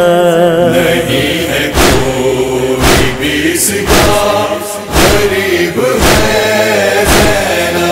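Chorus of voices chanting a held, wordless lament line for a noha, over a heavy thud that falls steadily about once a second.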